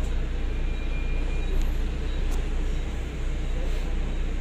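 Steady low rumble of a Volvo B9TL double-decker bus under way, heard from inside its upper deck: the Volvo D9A six-cylinder diesel running with road and body noise.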